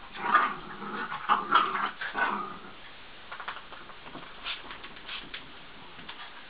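Two dogs play-fighting, with a quick run of short dog vocal sounds in the first two seconds or so, then only faint clicks and scuffling.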